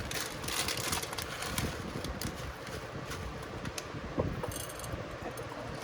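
Kitchen items being handled: a run of light clicks, taps and rustles, busiest in the first two seconds, with a sharper tap a little past four seconds.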